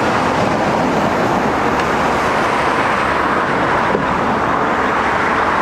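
Steady city street traffic noise: a continuous even wash of passing vehicles, with no single sound standing out.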